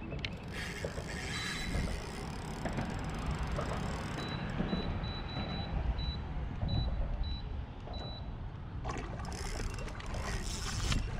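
Water sloshing against a kayak hull and wind rumbling on the microphone while a hooked fish tows the kayak, with a faint broken high beeping a few seconds in and a couple of louder rushes of water near the end.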